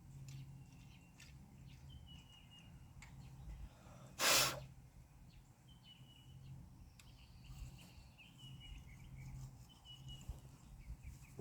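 A steady low hum with faint, scattered high chirps and a few light clicks, broken once, about four seconds in, by a short, loud burst of noise lasting under half a second.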